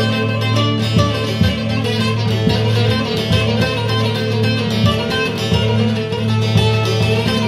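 Music on a plucked string instrument: quick picked notes over a steady low drone.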